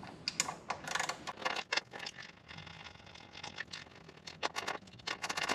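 Hand tools working the bolts at the bottom of a motorcycle's gas tank: irregular light metal clicks and scrapes, with a quick run of clicks near the end.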